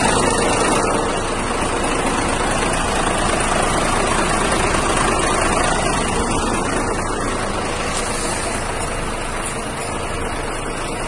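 Mercedes-Benz truck engine idling steadily, heard up close at the engine bay.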